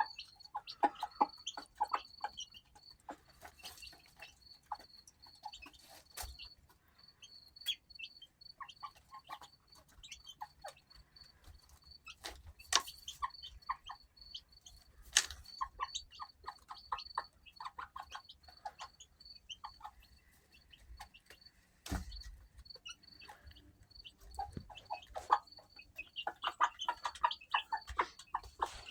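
Chickens clucking softly while they peck at fly larvae dropping to the ground, with a few sharp clicks. A faint high, flickering tone sounds underneath.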